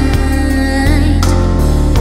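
Japanese pop song recording playing: a held, scooping vocal line over a steady, heavy bass and full backing.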